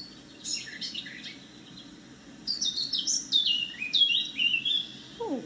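Songbirds chirping and singing in quick, high notes that sweep downward. There is a short bout near the start and a longer, louder run from about two and a half seconds in.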